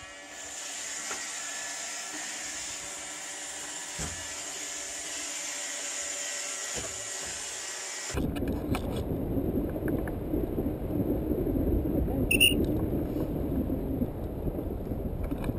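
Robot vacuum cleaner running, a steady motor whine with brush hum. About eight seconds in it gives way to heavy wind rumble on the microphone of a paraglider in flight, with one short high whistle blast about four seconds later.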